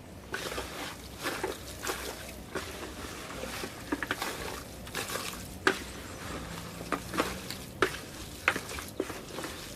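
Raw chicken pieces being mixed by hand with curry seasoning in a pan: irregular wet squishing and squelching, with a few sharp knocks of meat against the pan in the second half.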